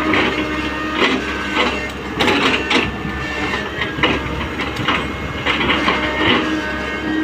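Tata Hitachi 120H excavator's diesel engine running steadily under load, with irregular clattering knocks from the machine as it works.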